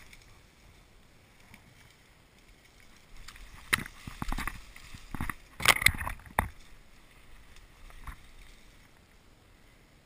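Dry reeds and tall grass rustling as someone pushes through them, in an irregular run of strokes lasting about three seconds in the middle, with one last faint rustle near the end.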